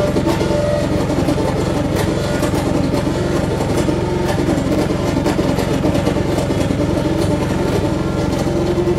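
Saxophone feedbacker: a saxophone driven into electro-acoustic feedback, producing harsh noise. A dense, rapidly pulsing low buzz under a rough, shifting midrange, with scattered crackles, as the keys are fingered.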